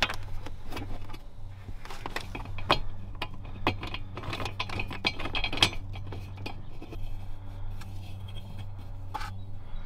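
Small metallic clicks and clinks as a screw is fitted into a black metal MOLLE panel by hand and turned with a small Allen wrench. The clicks come thick and fast for the first several seconds, then thin out to a few.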